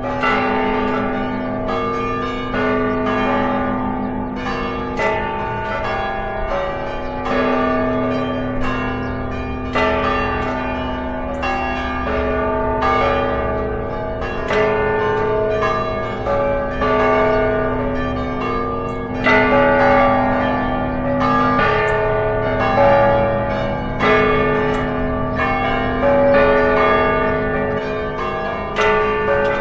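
Church bells ringing in a continuous round of strokes, about three a second, the tones of the different bells overlapping and ringing on into one another.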